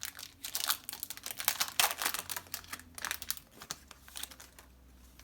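Foil wrapper of a Pokémon booster pack crinkling and tearing as it is opened: a dense run of crackles for about three and a half seconds, then quieter.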